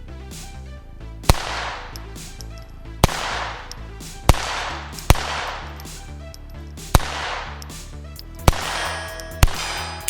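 Seven single gunshots from a Star Model F .22 LR pistol, sharp cracks spaced about one to two seconds apart, each trailed by an echo, over background music.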